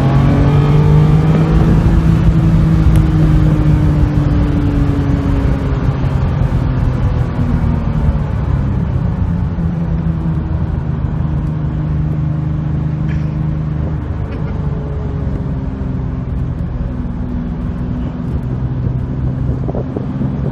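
Car engine and road noise heard from inside the cabin while driving at speed. The engine note rises a little in the first couple of seconds, then holds steady and eases slightly toward the second half.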